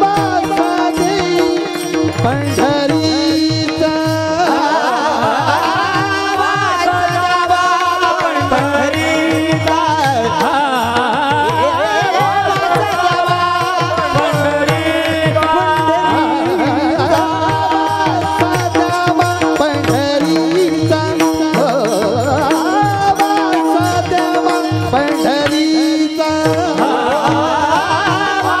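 Men's chorus singing a Marathi kirtan chant together, with small brass hand cymbals (taal) clashing in a steady rhythm and a hand drum keeping the beat.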